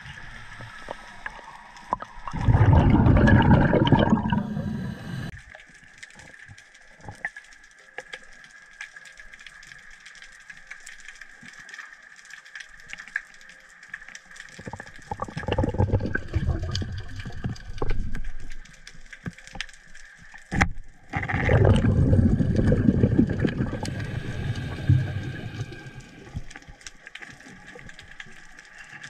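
Underwater sound through a diver's camera housing: a constant faint crackle of tiny clicks, broken three times by loud, low, rushing water turbulence from movement close to the camera.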